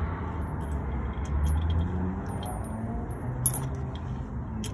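Light metallic clinks and jangling of tools and hardware during a field repair on a Jeep, with a couple of sharper clicks near the end, over a low steady hum.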